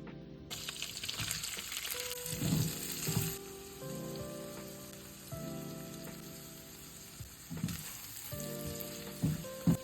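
Food frying in a pan, sizzling strongly for the first few seconds and again near the end, with a few knocks from a utensil stirring it.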